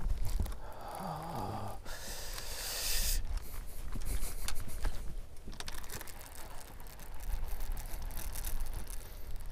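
A cast and retrieve with rod and reel: a hiss of line paying out off the reel about two seconds in, then the reel being cranked with a run of faint clicks. Wind rumbles on the microphone throughout.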